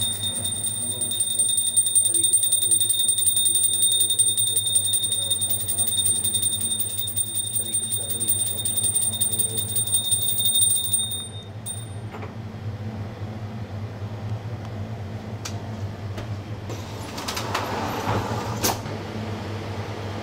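Small brass puja hand bell rung rapidly and continuously during a food offering to a deity, a fast even clatter of clapper strikes over a high ringing tone, stopping abruptly about eleven seconds in. After that a low hum, a few sharp clicks and a brief rustling noise near the end.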